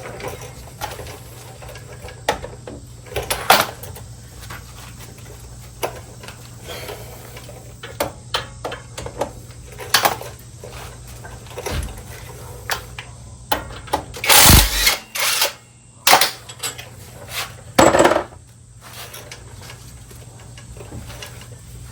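Wrench and metal parts clinking and knocking while the bolts of a truck's front wheel hub are taken off, with a louder burst lasting about a second about two-thirds of the way through, followed by a few sharp knocks.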